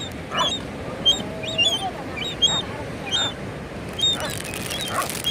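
Raccoons squabbling over food: a steady run of short high chirps and squeals, with nasal calls about every second and a drawn-out rising whine near the start.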